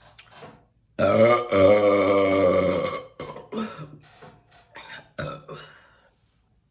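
A woman's long, loud burp after chugging soda, lasting about two seconds with a brief break near its start. A few short, quieter sounds follow.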